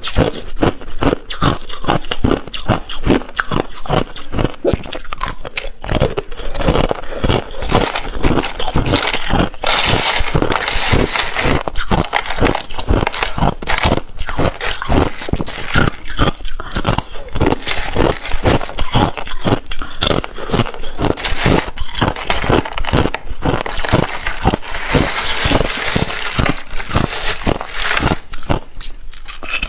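Thin flakes of crushed ice crunching and crackling close to the microphone in rapid, dense clicks. The ice is bitten and chewed, and scraped and rattled as a hand rummages through the flakes in a plastic tub, with longer scraping stretches about a third of the way in and again near the end.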